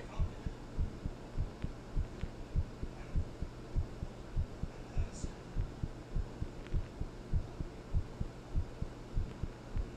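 A heartbeat: steady low lub-dub thumps in an even rhythm, over a steady low hum.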